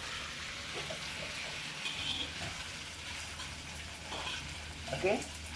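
Glass noodles and vegetables sizzling steadily in a hot wok as they are stir-fried with a metal spatula.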